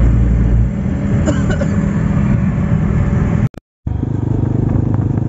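Road and engine noise inside a moving car, with low wind buffeting at the start. After a sudden cut about three and a half seconds in, a motorcycle engine runs steadily at cruising speed, with wind rushing past, heard from the pillion seat.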